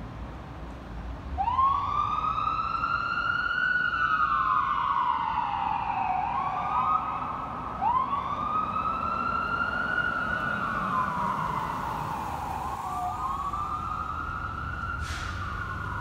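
Fire trucks' electronic wail sirens. About a second and a half in, a wail starts; each cycle rises over a couple of seconds and then falls slowly, and the cycles repeat, with a second siren overlapping at times. A short hiss sounds near the end.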